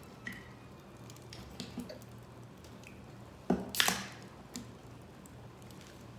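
Shii nuts roasting in a roaster over a campfire: scattered small crackles and clicks, with a louder cluster of sharp cracks about three and a half seconds in.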